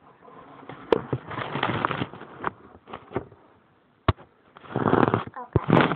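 Handling noise from a handheld phone being moved: irregular bursts of rubbing and rustling, with sharp knocks about a second in, just after four seconds, and near the end.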